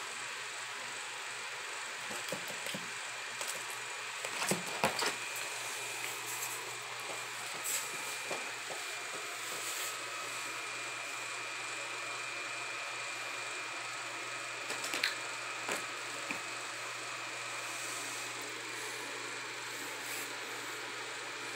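Steady indoor background hiss with a faint, constant high whine, broken by a few soft taps and knocks a few seconds in and again about two-thirds of the way through.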